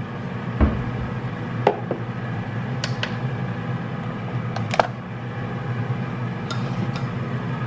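Glass bowls clinking and knocking as they are set down on a kitchen counter and scale: about six light knocks, the loudest just under five seconds in with a short ring. Under them runs the steady low hum of an air fryer cooking.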